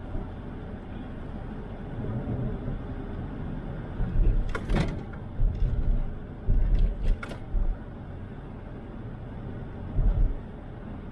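Car driving through snow: steady road and cabin noise, broken by several heavy low thumps in the middle and near the end, with a couple of sharp clicks among them.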